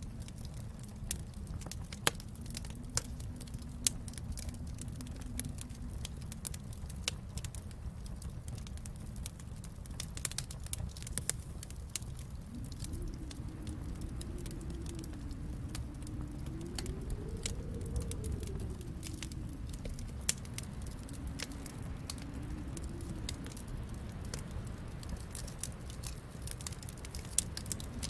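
Wood fire in a fireplace crackling, with irregular sharp pops over a low steady rumble that swells a little around the middle.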